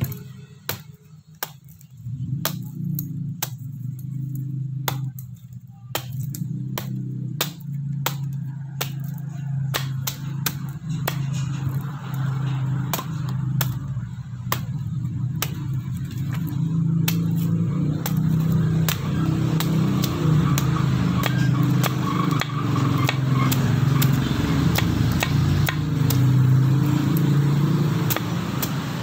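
Heavy hand-forged bushcraft knife chopping into the fibrous husk of a young green coconut: repeated sharp chops, roughly one or two a second, as the husk is hacked away. A steady low drone comes in about two seconds in and grows louder under the chops.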